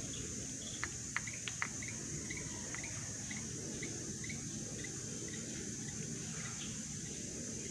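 Outdoor garden ambience: a steady high-pitched hiss under a string of short chirps, about two a second, with a few sharp clicks about a second in.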